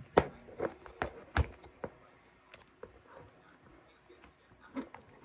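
Handling sounds on a desk: a run of sharp taps and clicks in the first two seconds, then fainter scattered ticks, with a few more taps near the end.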